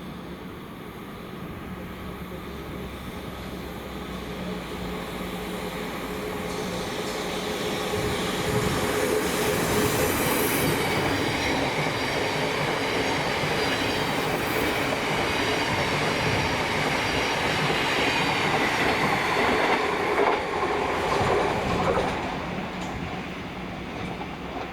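A train passing on the line: its rolling noise builds over the first several seconds, stays loud for about fourteen seconds, then fades near the end, with brief high wheel squeals about ten and fifteen seconds in.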